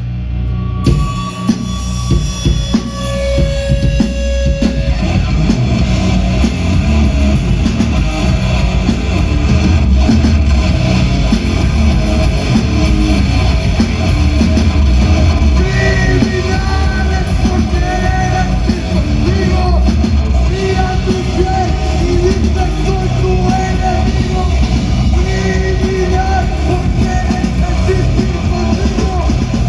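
Live rock band playing loud, with drums and distorted guitar. The band crashes in about a second in, with a few held guitar tones over the first seconds. A voice sings or yells over it from about halfway through.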